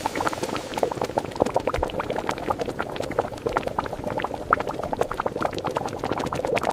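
A thick mixture boiling, with dense, irregular bubbling and popping throughout.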